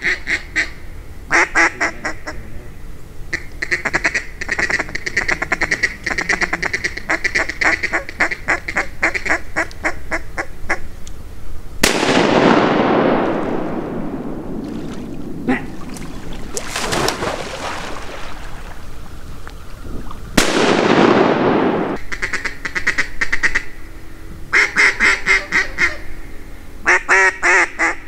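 Rapid runs of mallard quacking, broken by two loud shotgun blasts, one a little before halfway and one about eight seconds later, each echoing away over a second or two. A few sharper cracks come between the blasts, and the quacking starts up again near the end.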